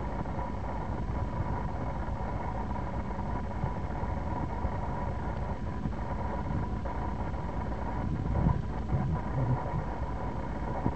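Movable harbour footbridge in motion: its drive machinery gives a steady low rumble with a steady high tone over it, swelling a little louder a couple of times near the end.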